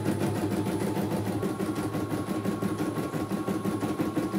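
CNY E900 computerized embroidery machine stitching in a fast, even rhythm of needle strokes, with a thin steady whine joining about a second and a half in. It is running smoothly with no trouble.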